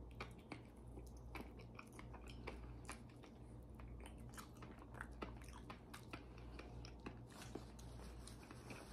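Close-miked chewing of soft raw fish sashimi: faint wet mouth clicks and smacks scattered throughout, over a low steady hum.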